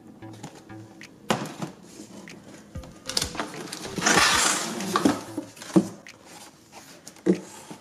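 Cardboard boxes being handled over quiet background music: several knocks, with a longer, louder scraping rustle around the middle as a boxed kit is slid out of a cardboard shipping carton.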